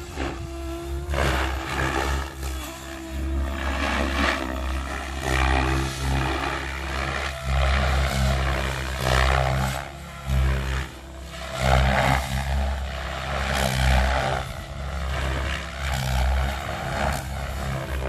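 Electric RC helicopter with an Egodrift brushless motor flying 3D aerobatics. The rotor blades whoosh loudly, swelling and fading every second or two as the helicopter flips and changes blade pitch.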